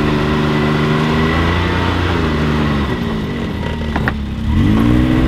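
Can-Am Maverick X3's turbocharged three-cylinder engine running under way, its pitch easing off a little about two and three seconds in. A sharp click comes about four seconds in, then the engine rises in pitch as it accelerates again.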